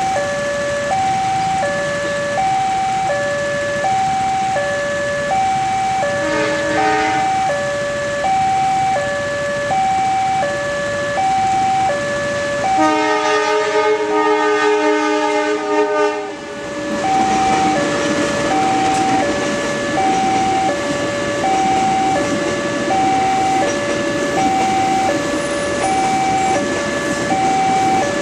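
Railroad level-crossing alarm sounding its two-tone electronic warning, alternating high and low notes about once a second. About 13 seconds in, a train horn sounds a chord for about three and a half seconds. After that the rumble of the train rolling over the crossing runs under the alarm. A short horn beep comes about six seconds in.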